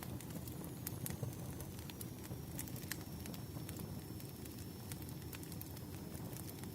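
A wood fire burning: a steady low rumble of flames with irregular sharp crackles and pops of burning firewood, several a second at times.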